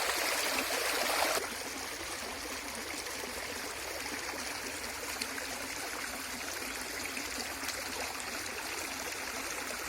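Steady rush of flowing river water. It drops in level suddenly about a second and a half in, then runs on evenly.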